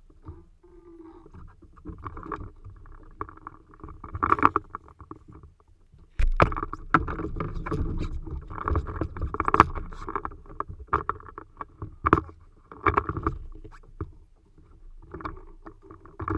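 Spinning fishing reel whirring and clicking as a hooked mahi mahi is fought from a kayak. About six seconds in, a heavier rumble of handling and water against the plastic hull joins in, with several sharp knocks.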